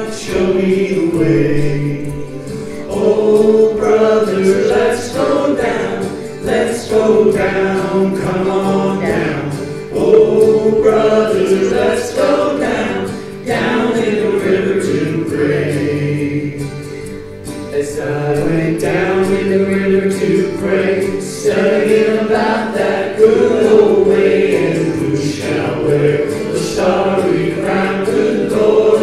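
A small group of women and a man singing a gospel song together through microphones, several voices in harmony without a break.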